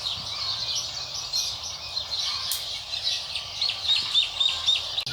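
Birds chirping in short, high notes, with a quick run of repeated chirps about three and a half seconds in.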